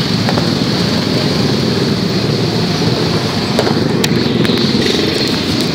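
Loud, steady din of a crowded street: motorcycle and car engines mixed with crowd noise, with a few sharp clicks around the middle.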